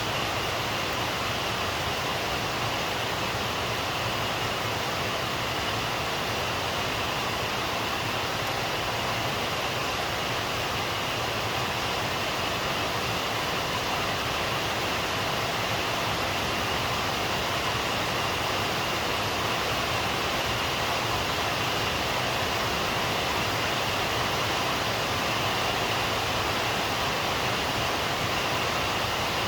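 Rain falling in a steady, even downpour, with no thunder.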